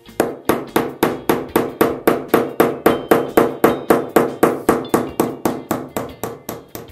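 Hammer tapping lightly and quickly, about four strikes a second, driving a slightly smaller screw into drywall to make a pilot hole in place of a drill.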